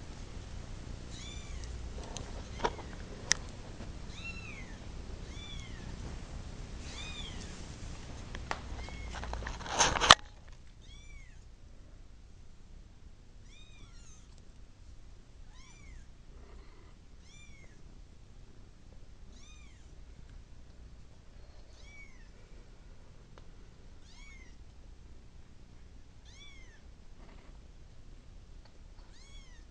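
A kitten meowing over and over in high, arching calls about every second or two, as a kitten calls for its mother. A few sharp clicks and one loud clack come about ten seconds in.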